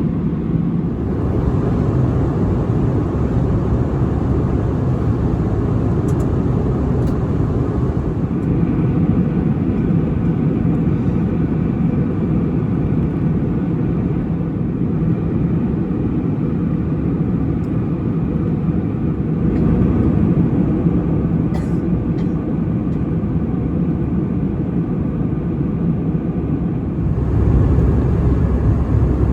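Airbus A321-200 cabin noise in flight: a steady low rumble and hiss from the engines and airflow. The level changes slightly at a few points.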